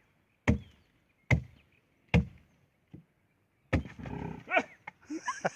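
Axe chopping into a tree trunk, a few sharp strikes about a second apart, cutting away the wood around the hollow where a calf's head is stuck. In the last two seconds a jumble of high calls that bend up and down in pitch joins in.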